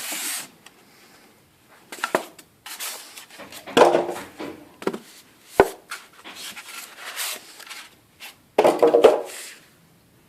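Packaging being handled: irregular rustling and scraping with a few sharp knocks, loudest in two bursts, one about four seconds in and one near the end.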